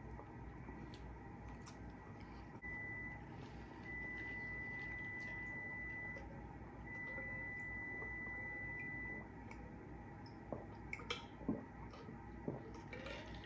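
A steady high-pitched beep tone sounds three times, once briefly and then twice for about two seconds each, over a faint low background hum. A few sharp clicks follow near the end.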